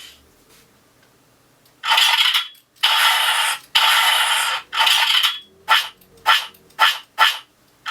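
Sound effects from an Arduino-driven blaster prop's own speaker: after nearly two seconds of quiet, four longer bursts follow, then four short ones in quick succession.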